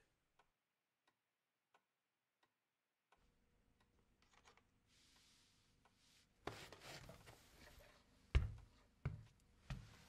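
A clock ticking faintly and slowly in a very quiet room. In the second half come a few soft rustles and knocks, the loudest about eight and a half seconds in.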